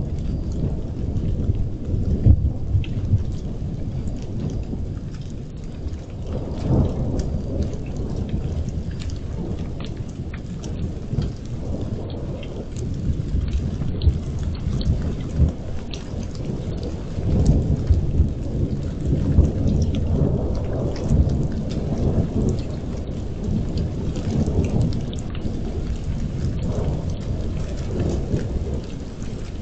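Rolling thunder rumbling almost without pause and swelling several times, over steady rain falling on the yard and pavement, picked up by a security camera's microphone.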